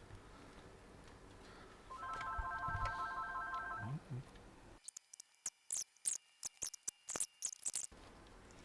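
An electronic ringtone-like tone, a stack of steady pitches pulsing rapidly, sounds for about two seconds. It is followed by a run of sharp, irregular clicks.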